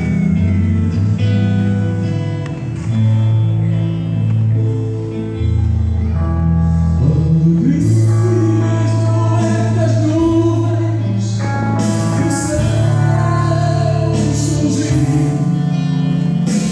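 A small band playing gospel music live, with acoustic guitar, electric bass and keyboard, and a voice singing from about seven seconds in.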